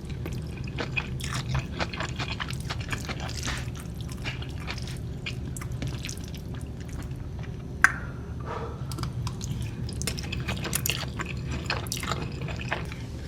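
Wet, sticky squishing and dripping of peanut sauce and pad thai noodles being handled, a dense run of small wet clicks over a steady low hum, with one sharper click about eight seconds in.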